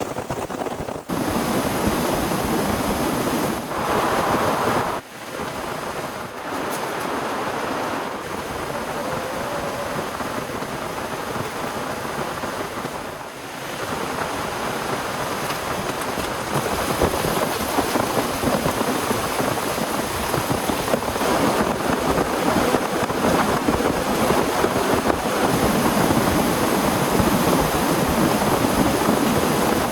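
Heavy rain falling, a dense steady hiss that breaks off abruptly several times, as at cuts between shots.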